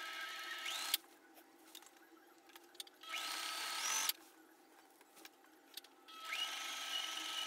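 Electric sewing machine stitching through cardstock cutouts in three short runs of about a second each, with silence between them. At the start of each run the motor's pitch rises as it speeds up, then holds at a steady whine.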